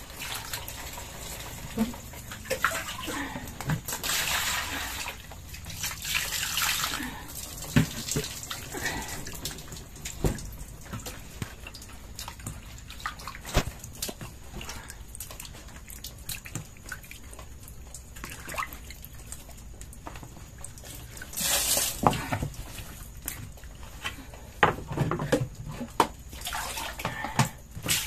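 Water poured from a plastic dipper splashing over fish and onto a wet wooden floor, in two longer splashes a few seconds in and about two thirds through, with short knocks and clicks of fish and plastic tubs being handled in between.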